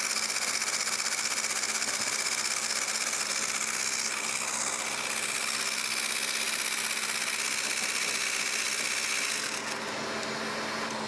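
Electric mixer running at high speed, whipping egg whites with sugar added gradually, a steady high whir. About ten seconds in the high whir drops away, leaving a lower steady hum.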